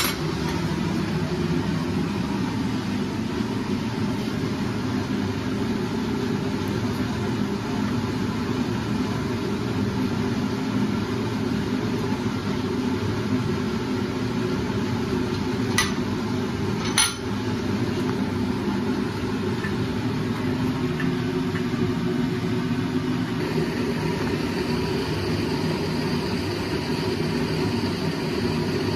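A steady mechanical hum from workshop machinery, with two sharp metallic clinks about two-thirds of the way through. A faint high whine joins the hum near the end.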